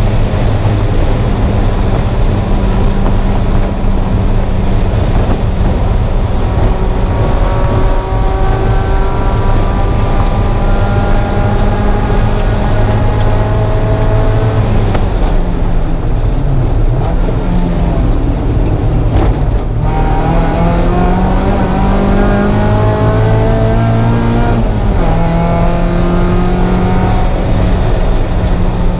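1994 Mazda Miata's 1.8-litre four-cylinder engine under load at track speed, over a steady low rumble: its pitch climbs slowly for about fifteen seconds, falls as the car slows, then climbs again, with a gear change about three-quarters of the way through.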